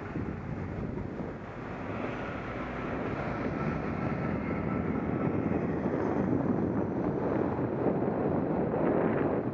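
Wind rushing over a bike-mounted action camera's microphone, mixed with street traffic, as a bicycle rides on. It grows steadily louder from about a second and a half in.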